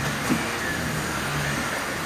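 Vacuum cleaner running with a steady rushing noise, and one short click about a third of a second in.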